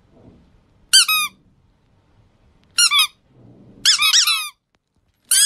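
Squeaky plush chick toy being squeezed, giving short high-pitched squeaks that fall in pitch: one about a second in, a quick pair near three seconds, a longer run of squeaks around four seconds, and another at the very end.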